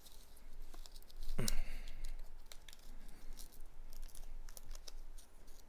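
Knife cutting open plastic coin packaging, with crinkling plastic and scattered light clicks; one louder rip comes about a second and a half in.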